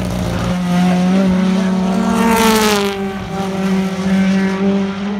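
Turbocharged BTCC touring car engines running on track as the cars brake into and take a corner. The engine note surges loudly about two seconds in, then falls away. This is the kind of on-track sound that includes anti-lag crackle on lift-off.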